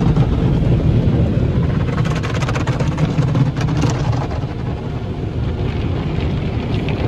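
Tunnel car wash heard from inside the car: a steady, loud rumble of the wash machinery, with foam and water spraying against the glass and cloth brushes sweeping over the car's body and windshield.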